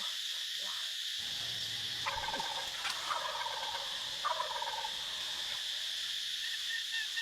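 Two turkey gobbles, each a quick rattling call, about two seconds apart, over a steady high drone of insects.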